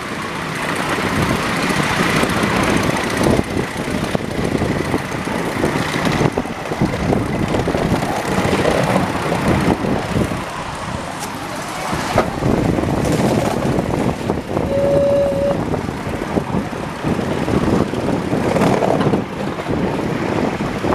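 A 5-inch gauge live steam locomotive running along a miniature railway track, its working and its wheels on the rails making a steady, busy noise.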